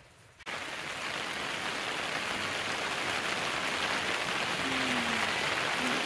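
A steady hiss of falling or rushing water that cuts in suddenly about half a second in and holds evenly.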